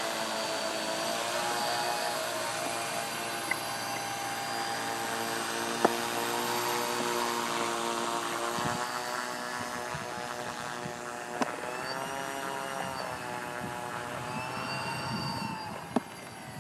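Twin counter-rotating propellers of a radio-controlled model airplane humming as it taxis, the pitch rising and falling with the throttle and growing fainter near the end as the plane moves off down the runway. A few sharp clicks break in.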